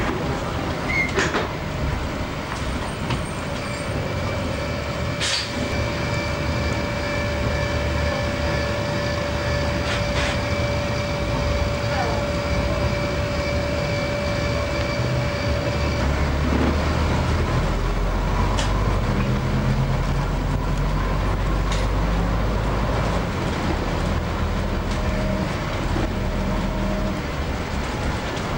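Bus engine, gearbox and road noise heard from inside the moving bus. A steady high whine runs over the engine until about halfway through, then gives way to a deeper engine drone. A few sharp clicks come through along the way.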